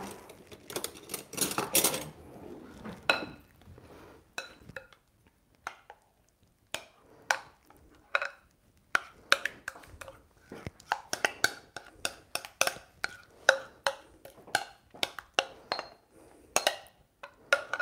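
Spoon scraping and tapping against a glass bowl as thick ricotta filling is scooped out into a tart tin: an irregular string of short clinks and taps, a few a second, after a stretch of handling noise at the start.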